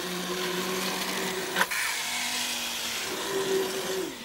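Hand-held immersion blender running in a tall steel pot, puréeing cooked pumpkin soup; its steady hum shifts up in pitch a couple of times as it works through the soup. One sharp knock about one and a half seconds in.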